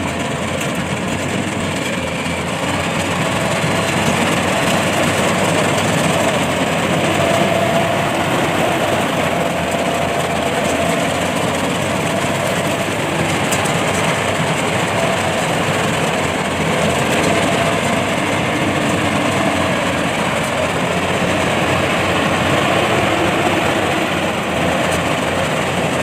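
Yanmar YH850 combine harvester's diesel engine and machinery running steadily.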